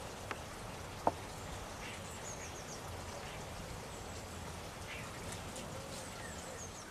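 Faint, high, thin calls of small songbirds in short descending runs, over a steady background hiss, with a sharp click about a second in.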